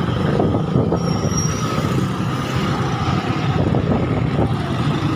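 Steady engine and road noise heard from on board a moving vehicle in street traffic.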